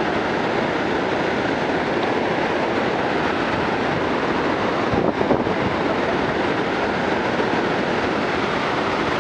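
Steady roar of Niagara's Bridal Veil Falls pounding onto the rocks at its base, a dense unbroken rush of crashing water.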